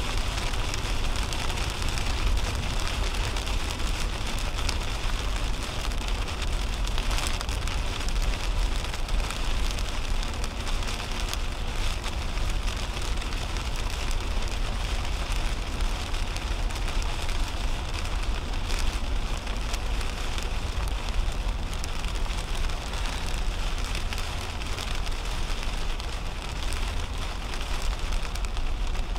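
Heavy rain hitting the windshield and roof of a 2010 Toyota Camry at highway speed, heard from inside the cabin, over steady tyre noise on wet pavement and a deep, continuous road rumble.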